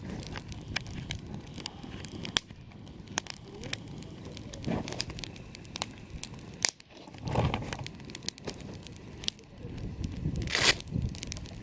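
Campfire crackling, with frequent sharp pops of burning wood. There are louder rustling, crunching surges about five, seven and a half and ten and a half seconds in.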